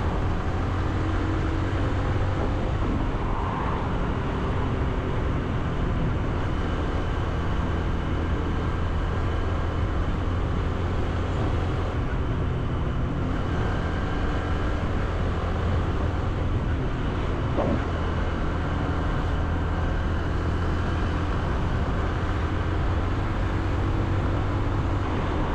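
Honda CB125F's 125cc single-cylinder engine running steadily while riding at road speed, under a constant rush of wind and road noise.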